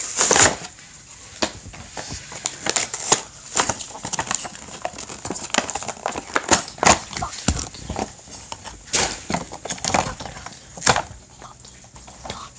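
Toy monster truck packaging being handled and opened by hand: irregular cardboard and plastic rustling with many sharp clicks and snaps, the loudest just at the start and around a third and halfway through.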